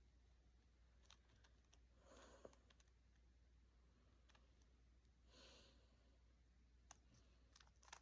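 Near silence: faint room tone with a few soft clicks and two brief breathy sounds.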